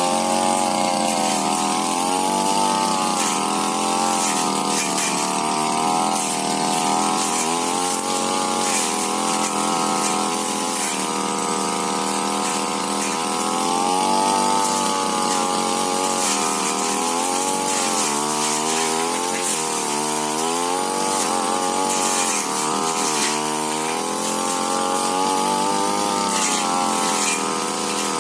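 Tiger TG328 brush cutter engine running at high revs, its pitch dipping and recovering again and again as the blade bites into brush.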